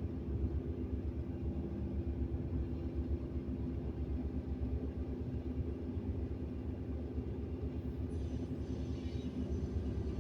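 Excavator's diesel engine running steadily with a fast even throb, and a brief faint hiss about eight seconds in.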